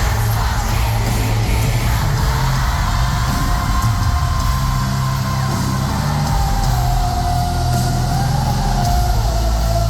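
Live rock band playing loud: heavy bass and drums with electric guitar, and a long held sung note sliding slowly down in pitch.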